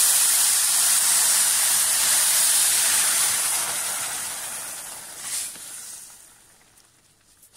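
Water hitting a hot pan of ghee-fried vermicelli, sizzling and hissing loudly as it flashes to steam. The hiss dies away over the last couple of seconds.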